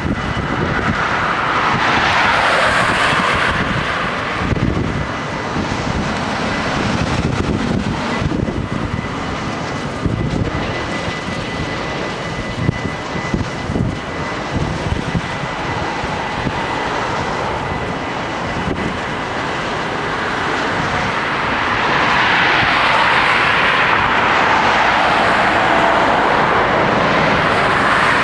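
Freight train of VTG hopper wagons rolling steadily past at the level crossing, a continuous rumble with wheels knocking over rail joints and a faint steady high squeal. A car drives past near the end, adding rushing noise on top.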